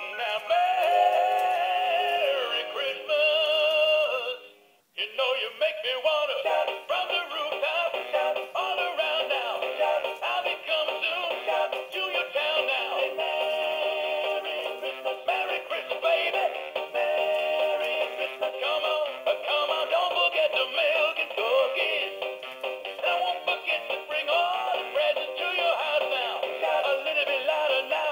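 Animated plush toy dog singing a Christmas song in a synthetic voice over a backing tune, played through its small built-in speaker. The sound breaks off briefly about four and a half seconds in, then the song carries on.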